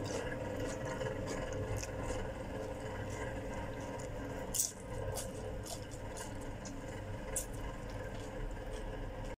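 Steady low room hum with faint scattered clicks and light handling rustles, a little louder about four and a half seconds in.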